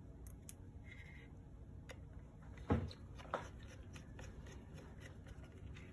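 Faint small-part handling: light ticks and clicks of a screwdriver and the hard drive's mounting screws being moved from the old drive to the new SSD, with two sharper knocks about three seconds in.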